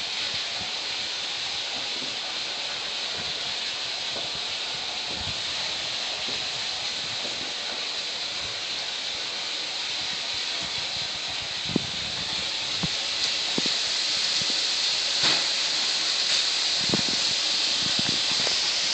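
Steady high hiss that grows a little louder about two-thirds of the way through. A few soft knocks break in during the second half.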